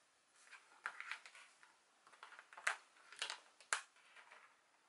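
Faint handling of a handmade paper scrapbook album: cardstock pages and flaps rustling as they are turned and folded shut, with two sharp taps about a second apart.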